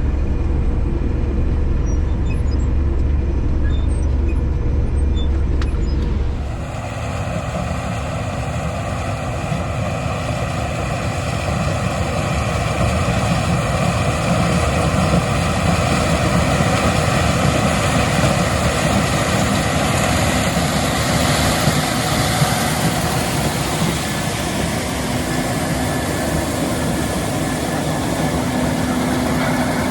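Case IH 7130 Axial-Flow combine running steadily while harvesting corn. For the first six seconds or so there is a deep, low rumble; then the sound changes suddenly to a fuller, brighter machine noise that holds steady.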